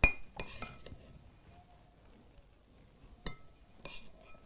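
A metal spoon clinking against a stemmed glass dessert cup while fruit salad is spooned into it. There is one sharp, ringing clink at the start, then a few lighter clinks and scrapes.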